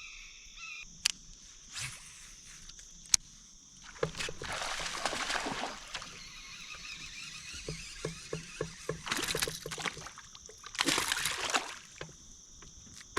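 Water sloshing and splashing against a small boat in three swells, with a steady high-pitched insect chorus throughout. There are a few sharp clicks in the first three seconds and a quick run of light ticks partway through.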